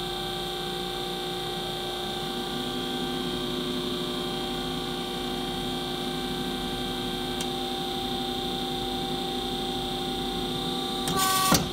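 Hydraulic hose-crimping machine running steadily as it crimps a stainless fitting onto a Teflon hose. Its hydraulics give a hum of several steady tones, a lower tone joins about two and a half seconds in, and there is a brief loud burst of noise near the end as the crimp finishes.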